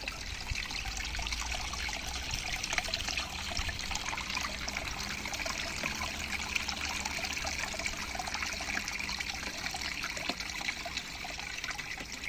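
Water trickling steadily down a small waterfall, with many small splashes and drips.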